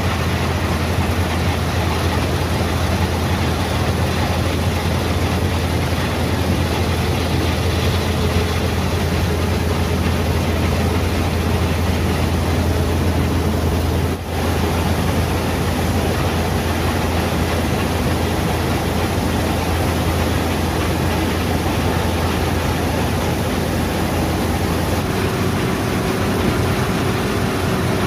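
Deutz-Fahr M 2385 combine harvester running steadily while harvesting barley: a loud, constant low engine drone mixed with the rushing noise of the machinery, with a brief drop about halfway through.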